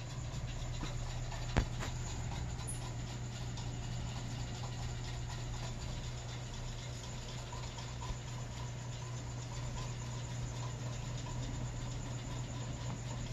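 Steady low hum and hiss of room noise, with one sharp click about a second and a half in and a faint click around eight seconds.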